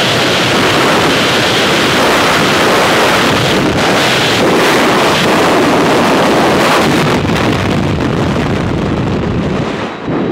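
Freefall wind rushing over a skydiving camera's microphone: a loud, steady rush of air that dips briefly near the end.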